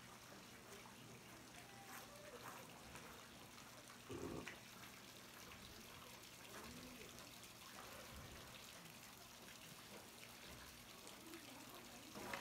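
Near silence: faint outdoor ambience, a steady hiss with faint distant voices and a soft low bump about four seconds in.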